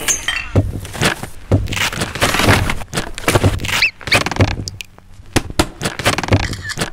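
A beatbox-style rhythm cut together from everyday sounds: low thumps about twice a second with sharp clicks and snaps between them, and a short rising squeak just past the middle.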